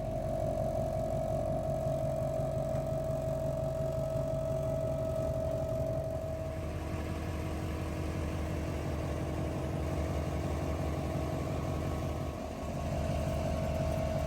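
A vehicle engine running steadily under way, with a low pulsing drone and a steady hum over it. The level drops briefly about twelve seconds in, then picks up again.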